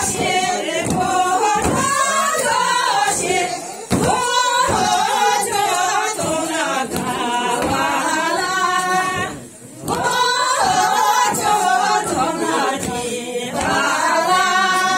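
A group of women singing together without instruments, with short breaks between phrases about four seconds in and again after about nine seconds.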